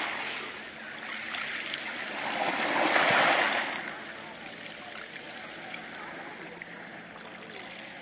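Small sea waves washing in over a pebble beach. The tail of one wave fades at the start, the next swells to its loudest about three seconds in, then eases into a steady wash of water through the pebbles with faint clicks.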